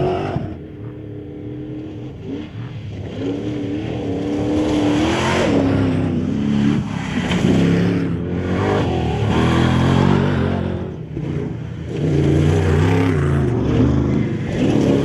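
Drag racing engines revving and accelerating hard. Their pitch climbs and then drops several times, as at throttle blips and gear shifts.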